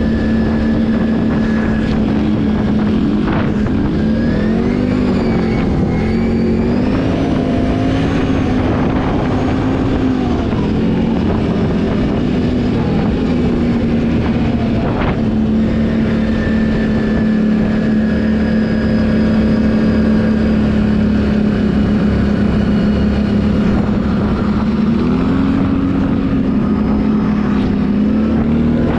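Can-Am ATV engine running while riding, its pitch rising and falling with the throttle, with a couple of brief knocks along the way.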